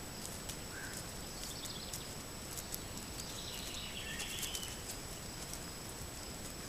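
Light, scattered clicks of white-tailed deer hooves stepping through grass close to a trail camera, over the camera microphone's steady hiss and a thin high-pitched whine. Two faint chirps are heard, about a second in and around three to four seconds in.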